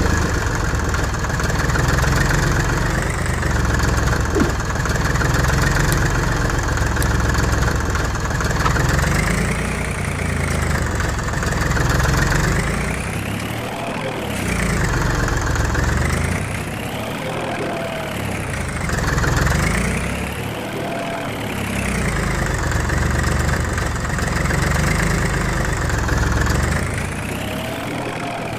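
A heavy machine's engine idling steadily. From about nine seconds in, its tone sweeps up and down in slow waves roughly every three to four seconds.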